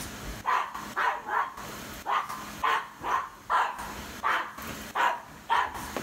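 Cavalier King Charles Spaniel puppy barking at a vacuum cleaner: a run of short, sharp barks, about two a second, starting about half a second in.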